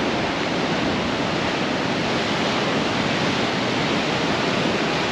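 Ocean surf: a steady, even rush of waves breaking.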